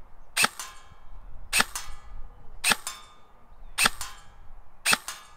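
KWA KM4 airsoft rifle firing five single shots at a steady pace of about one a second. Each shot is a sharp crack with a short ringing tail.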